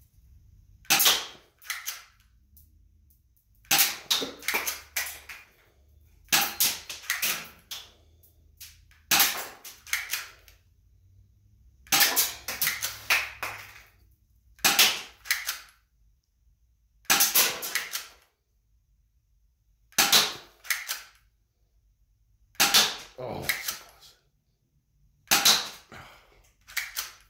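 Clear plastic toy pistol being worked and fired again and again. About ten bursts of sharp plastic clacks, one every two to three seconds, each a quick cluster of several clicks.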